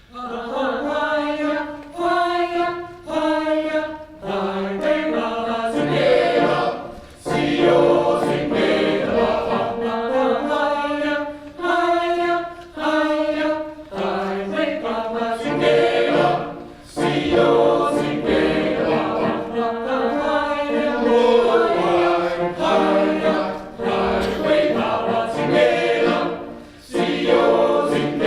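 A choir singing a cappella, coming in together all at once, in short rhythmic chordal phrases with brief breaks between them.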